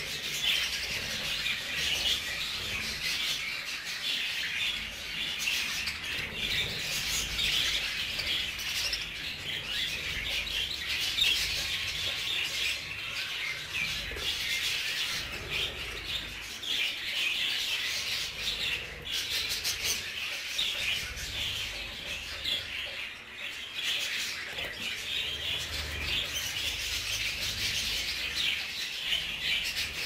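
A flock of budgerigars chattering and warbling continuously, many birds calling over one another.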